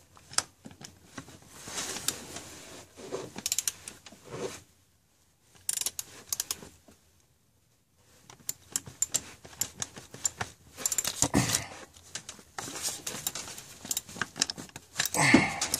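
Socket ratchet clicking in quick runs as a thermostat-housing bolt is tightened, with a break of a few seconds about halfway.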